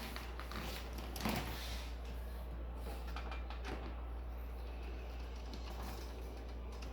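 Faint clicks and scrapes of a hand screwdriver driving screws to fasten a computer power supply into its case, with a slightly louder knock about a second in. A steady low hum runs underneath.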